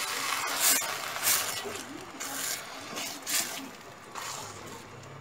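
Silicone spatula stirring thick blended-cassava broth in a stainless steel pot, with about five separate scraping and sloshing strokes against the pot.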